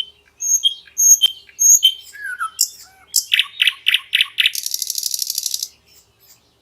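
Common nightingale singing one phrase: a few short separate whistled notes, then a run of about five loud repeated notes, ending in a fast buzzing trill about a second long.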